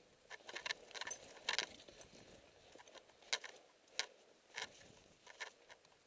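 Footsteps crunching in snow, an uneven series of short steps.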